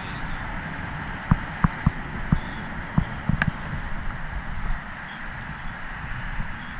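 Steady low background rumble, with a string of sharp knocks and clicks through the first half: handling noise from a hand gripping a small hooked bluegill.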